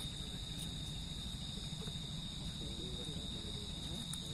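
A steady, high-pitched insect drone at one unchanging pitch, over a low rumble, with faint distant voices a little past the middle.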